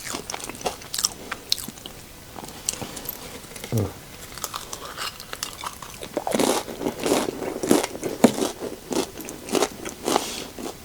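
Close-up eating sounds: crunchy tortilla chips of microwave nachos with melted cheese being bitten and chewed. The crunches come irregularly, and grow denser and louder about halfway through.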